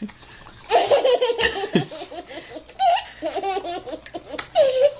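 A toddler laughing hard in three bursts of quick, repeated giggles with short pauses between.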